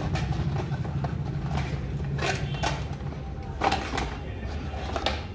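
Small cardboard box handled and opened by hand: several scattered rustles, scrapes and light knocks of cardboard, over a steady low hum.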